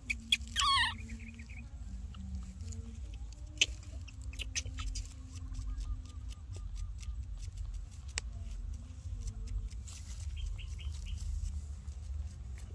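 Baby macaque giving one short, high squeal that falls in pitch about half a second in. After it come scattered small clicks and a few faint chirps over a steady low rumble.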